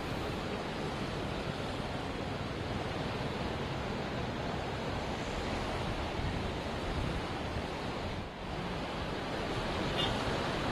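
Floodwater rushing steadily through a lake's sluice gate and over its weirs, with a brief dip about eight seconds in. The lake is at full level and surplus water is being let out.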